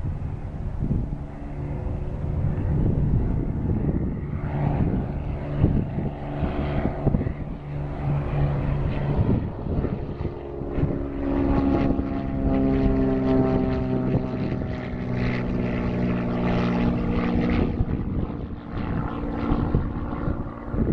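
Propeller airplane engine running steadily, its tone shifting a little in pitch about halfway through.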